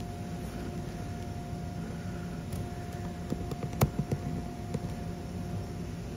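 A steady low mechanical hum with a steady whine above it, like a motor or fan running. A sharp knock comes about four seconds in, followed by a few lighter ones.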